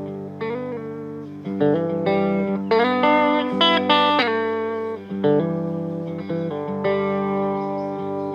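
Guitar playing the instrumental opening of a song: picked notes and chords struck about eight times, each ringing on over a held chord.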